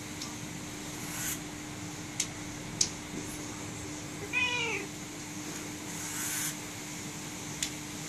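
A domestic cat meows once about halfway through, a short call that falls in pitch. A few sharp clicks come before and after it.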